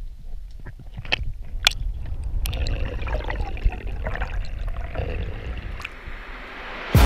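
Muffled underwater sound picked up by a camera in a waterproof housing: a steady low rumble of water moving past the housing, with scattered sharp clicks and ticks. Music cuts in loudly at the very end.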